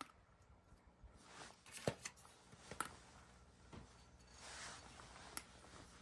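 Domestic cat eating dry kibble from a bowl: faint crunching with a few scattered clicks.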